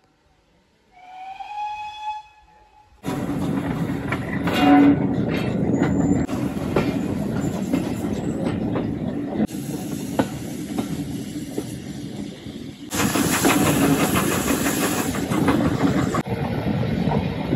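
A steam locomotive whistle sounds once, rising in pitch and then holding for about a second and a half, the signal for departure. A few seconds in, the rumble and clatter of the steam-hauled train's carriages running along the line takes over, heard from an open carriage window and growing louder for a few seconds near the end.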